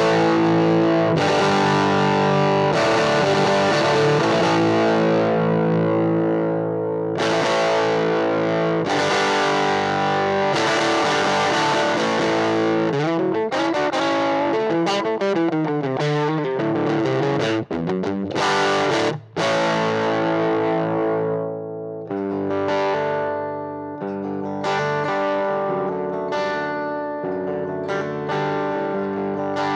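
Electric guitar played through a Fractal Audio FM9 modelling a 5F1 Tweed amp with its gain all the way up into the matching 1x8 DynaCab, with a little reverb. Rude, gnarly distorted chords and riffs ring out, with a few short breaks between phrases.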